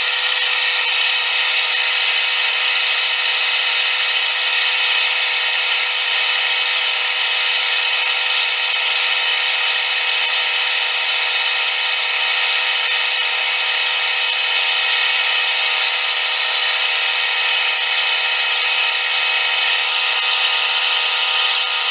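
Bench lathe spinning a rotary flattening tool (a fly-cutter-type cutter) that faces a workpiece clamped in a vise on the carriage as it feeds past, taking a light cut of a few tenths of a millimetre. The machining sound is steady and unbroken, with several steady whining tones.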